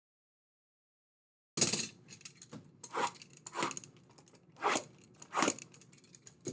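Trading card pack wrappers being ripped open and crinkled: a series of sharp crackling tears, about five strong ones, beginning about a second and a half in.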